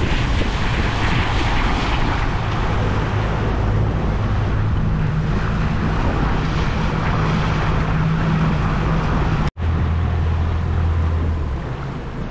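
Fishing boat's outboard motor running with a steady low hum, under a loud rush of wind on the microphone and water against the hull. The sound breaks off for an instant about nine and a half seconds in and eases off near the end.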